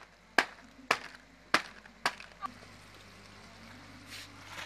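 Wooden block pounding lumps of jaggery on a cardboard tray, four sharp knocks about half a second apart and a lighter fifth, stopping about two and a half seconds in. A faint low steady hum follows.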